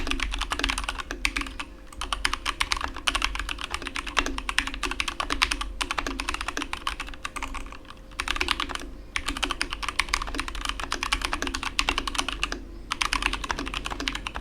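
Fast typing on a Keychron K2 (version 2) mechanical keyboard with Keychron G Pro brown switches, stock OEM-profile keycaps and pre-lubed stabilizers. The keystrokes come in quick runs with several short pauses, a clean sound with minimal stabilizer rattle.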